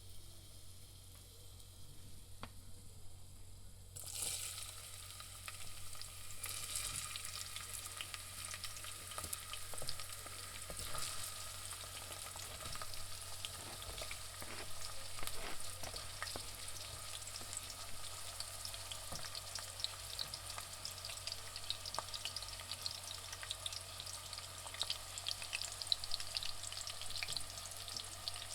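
Onions frying in hot oil. A faint hiss gives way suddenly, about four seconds in, to a loud dense sizzle and crackle that grows fuller a couple of seconds later and then carries on steadily.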